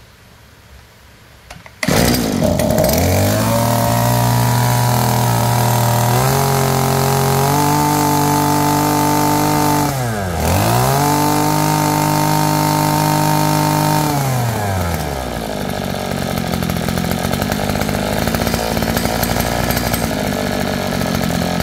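Maruyama MB2610 brush cutter's small two-stroke engine starting about two seconds in and revving high under held throttle, dropping briefly and revving up again around ten seconds in, then falling back to idle about fourteen seconds in.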